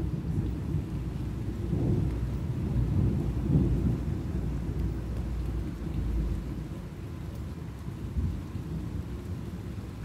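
Thunder from a large lightning flash rolling and rumbling, swelling a few times and then slowly fading near the end.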